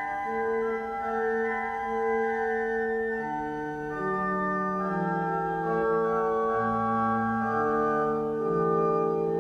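18th-century church pipe organ playing a slow classical passage in several parts, with held notes changing step by step every second or so.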